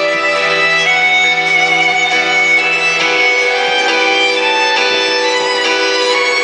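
Loud instrumental music with a violin melody over sustained held notes.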